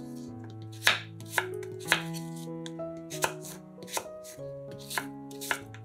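Kitchen knife slicing apple pieces and striking a wooden cutting board, a sharp tap roughly twice a second, unevenly spaced, over soft background music.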